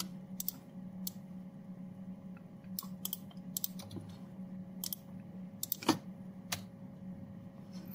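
Scattered clicks of a computer mouse and keyboard, about ten in all and irregularly spaced, over a steady low hum.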